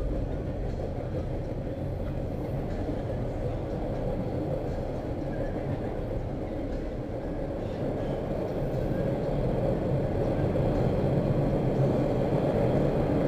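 Metro train ride heard from inside the car: a steady rumble of the train running on its track, growing a little louder in the last few seconds.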